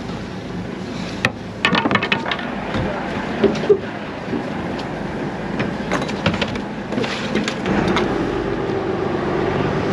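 Knocks and clatter of gear on a fishing boat's deck as the crew handle a freshly harpooned swordfish. A steady engine hum comes in about three-quarters of the way through.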